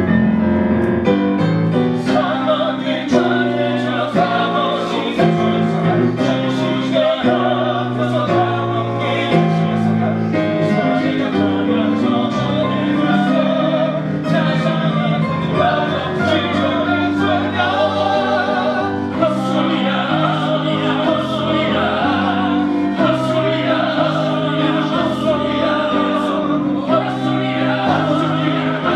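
Several voices singing a musical-theatre number together over instrumental accompaniment.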